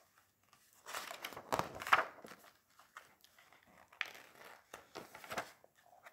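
Paper pages of a hardcover picture book being turned by hand: rustling swishes of paper, the loudest cluster between about one and two seconds in, then two shorter swishes around four and five seconds in.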